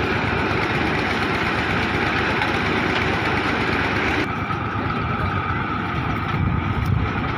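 A tubewell boring rig's engine running steadily under a dense mechanical din. About four seconds in the sound turns duller as its upper range drops away.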